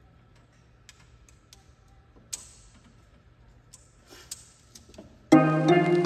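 A few scattered light clicks and ticks, one louder than the rest about two seconds in, like small parts or tools being handled. About five seconds in, background music with piano-like notes starts suddenly and becomes the loudest sound.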